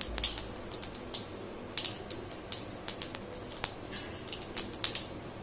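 Fennel seeds spluttering in a little hot oil in a steel kadai: irregular sharp pops and crackles, a few each second. This is the tempering stage, the seeds frying through before the curry leaves go in.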